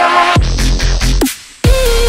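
Electronic dubstep background music with deep bass and falling sweeps. It drops out briefly about three-quarters of the way through, then comes back in with heavy bass.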